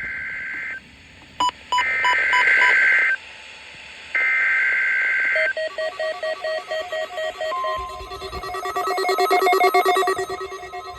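NOAA Weather Radio SAME header data: three bursts of warbling digital tones about a second apart. Then several weather radio receivers go off with overlapping pulsing alert beeps, and the steady 1050 Hz National Weather Service warning alarm tone starts under them about seven and a half seconds in.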